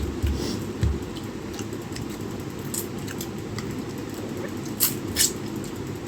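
Small sounds of someone eating a meal over a steady low background rumble: a couple of soft thumps near the start, then a few sharp clicks, one a few seconds in and two close together near the end.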